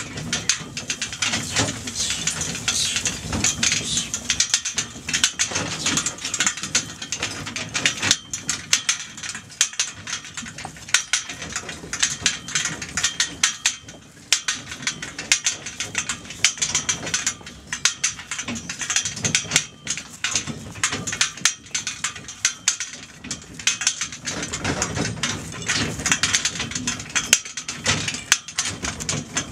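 Light horse-drawn lorry and its cart harness rattling and clinking continuously as a Clydesdale draught horse pulls it along, a steady stream of sharp clicks.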